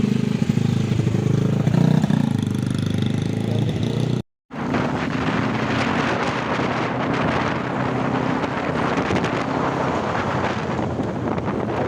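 Motorcycle engine running steadily. About four seconds in, the sound cuts out for a moment, and from then on rushing wind and road noise cover the engine, which carries on faintly underneath.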